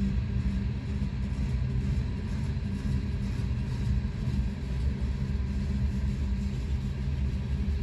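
Freight train cars rolling past on the main line, a steady low rumble heard from inside a car.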